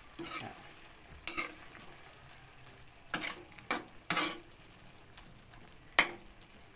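Metal spatula stirring chop suey in a metal wok: irregular scrapes and knocks against the pan, the sharpest clink about six seconds in, over a faint sizzle of the vegetables in their thickened sauce.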